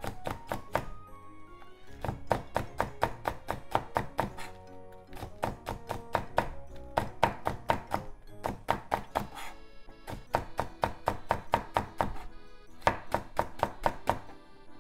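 Kitchen knife rapidly chopping the white part of a Japanese leek (negi) on a wooden cutting board: quick knocks of the blade against the board, about four to five a second, in runs with short pauses between. Background music plays throughout.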